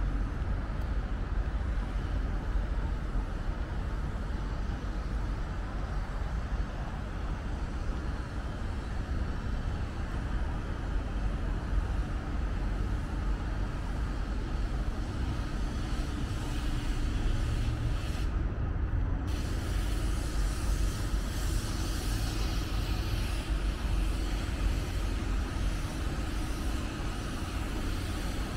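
Steady low rumble of city traffic, with no distinct single events standing out.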